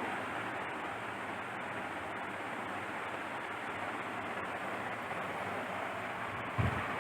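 Steady rushing background noise, with a single short low thump near the end.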